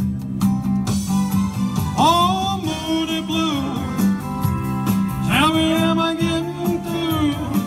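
Male singer performing through a microphone and PA over a backing track with guitar and a steady beat, holding long sung notes about two seconds in and again from about five seconds in.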